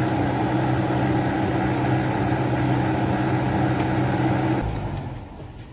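Nissan Sunny's AC blower motor running on its highest speed together with the idling engine: a steady, vibrating hum with several low tones, the vibration noise a dirty blower fan can cause. The sound stops suddenly about four and a half seconds in.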